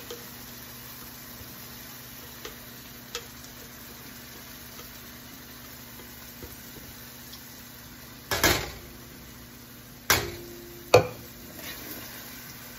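Faint steady sizzle in a stainless steel pan as thick roasted red pepper purée is scraped into it. Past the middle comes a short scrape, then two sharp knocks on the pan, each with a brief metallic ring.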